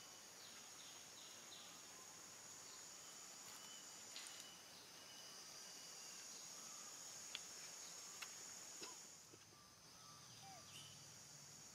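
Faint outdoor ambience of a steady, high-pitched insect drone that drops out briefly twice, with a few faint clicks.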